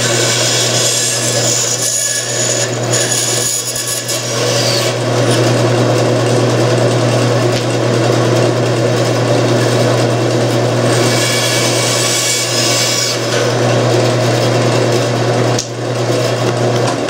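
Bandsaw running with a steady motor hum as its blade cuts through a wooden board, the hiss of the blade in the wood strongest near the start and again about two-thirds of the way through.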